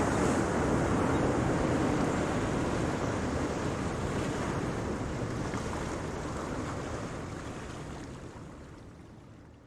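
Ocean surf: a steady wash of breaking waves that slowly fades away over the second half.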